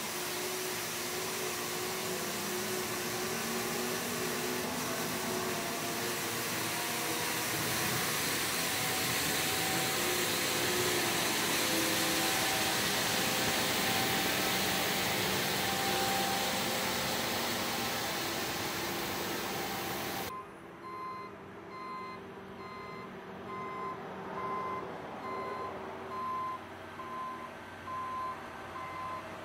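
Johnston street sweeper at work: its fan and gutter brooms make a loud, steady rush over the truck's engine. About two-thirds of the way in the rush cuts off suddenly, leaving the engine running and a reversing alarm beeping repeatedly.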